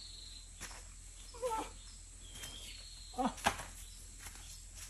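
Quiet outdoor ambience with a few short, high chirps and a wavering call about a second and a half in, typical of small birds or insects; a brief low sound and a sharp click come about three seconds in.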